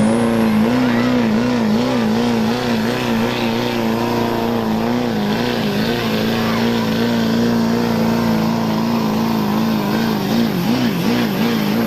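Chevrolet Silverado's Duramax turbo-diesel V8 held at full throttle under heavy load while pulling a weight sled, its revs wavering up and down in repeated swells as the tires spin and grab in the dirt, with a thin high whistle over it. The revs drop off at the very end.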